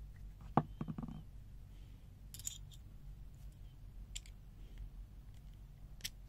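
Steel screwdriver bits clicking and tapping as they are handled between a plastic bit holder and the bit socket of an ANEX No.6070 L-type offset screwdriver: a quick cluster of knocks about half a second in, then a few single sharp ticks spaced well apart.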